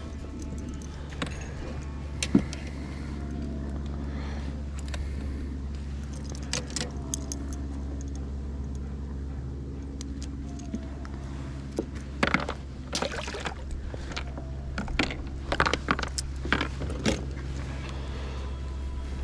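Metal fishing pliers and tackle clicking and jingling in the hands, with one sharp click early and a cluster of clinks from about twelve to seventeen seconds in, over a steady low hum.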